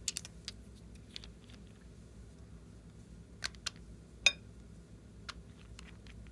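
Scattered sharp clicks and taps from handling slime and its mixing tools, with one louder, briefly ringing clink about four seconds in.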